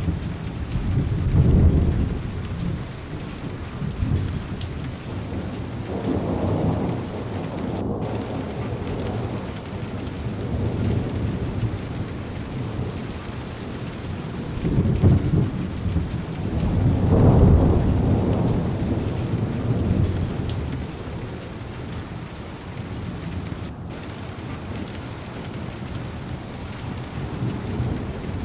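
Heavy rain drumming steadily on a car window, with low thunder rolling in several long swells, the strongest a little after halfway.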